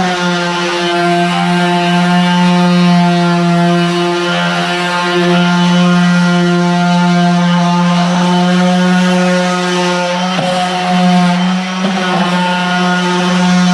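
Stanley FatMax 18-volt cordless orbital sander running steadily with 120-grit paper, sanding: an even motor hum that wavers slightly in pitch as the pressure on the pad changes.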